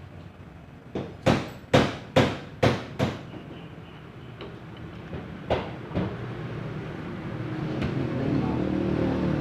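A hammer tapping on metal during a top-end overhaul of a Honda XRM 125 engine: six sharp knocks about two a second, then two more a couple of seconds later. A low, steady rumble builds up near the end.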